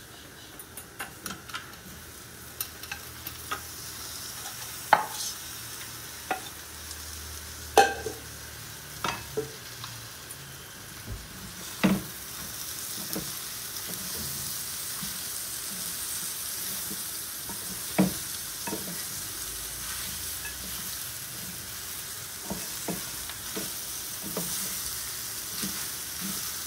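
Boiled pork frying and sizzling in a pan of roasted spice masala while being stirred, the spoon knocking sharply against the pan every few seconds. The sizzle grows louder about halfway through.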